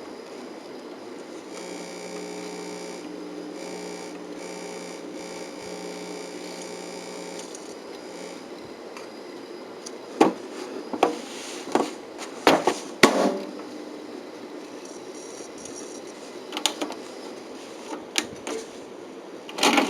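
Steady electrical hum from a 1980s Electrobrand stereo with a few held tones, then a run of sharp mechanical clicks and clunks from its front-loading cassette mechanism, with a few more clicks near the end.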